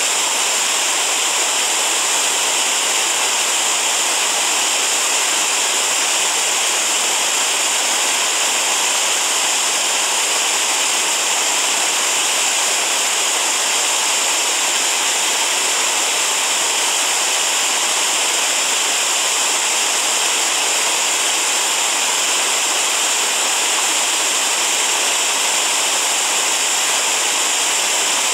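Mountain creek rushing over rocks in small whitewater cascades: a loud, steady hiss of running water.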